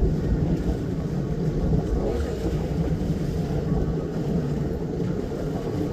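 Glass-bottom tour boat's engine running steadily, a low, even rumble, with some wind noise on the microphone.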